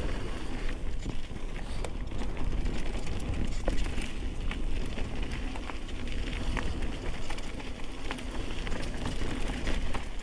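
Mountain bike rolling fast down a dirt singletrail: steady tyre and riding noise with a constant low rumble, and frequent small clicks and rattles from the bike over the rough ground.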